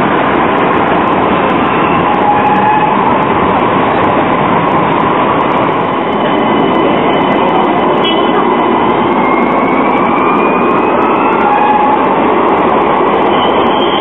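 Low-floor articulated street tram running past close by on its rails: a steady, loud rumble of wheels and running gear. Partway through, a faint whine rises in pitch.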